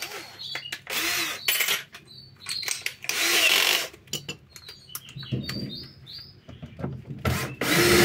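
Cordless drill-driver running in short bursts, driving a screw into a washing machine's drain pump mounting; the longest and loudest run comes near the end, with clicks and knocks between the runs.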